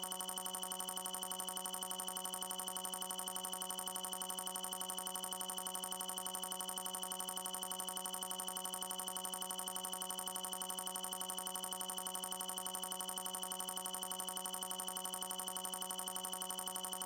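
A continuous electronic trilling tone, pulsing rapidly and evenly like a phone ringer, holding one pitch without a break.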